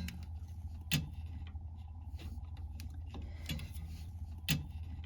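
A few sharp metallic clicks and taps as rear drum-brake parts are handled and fitted, the loudest about a second in and near the end, over a steady low hum.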